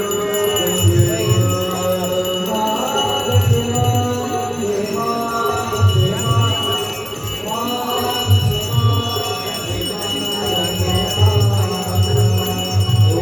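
Hindu aarti hymn sung by voices, with temple bells ringing throughout and a steady low beat underneath.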